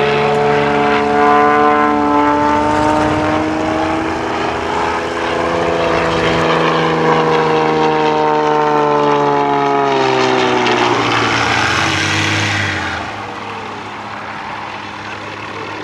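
Single-engine propeller aerobatic plane flying a display routine, its engine and propeller drone sliding slowly up and down in pitch as it manoeuvres. A louder rushing swell comes near the end before the sound settles quieter.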